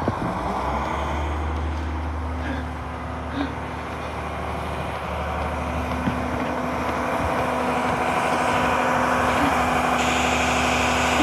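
Front-loading garbage truck's diesel engine running steadily and growing gradually louder, with a few faint knocks.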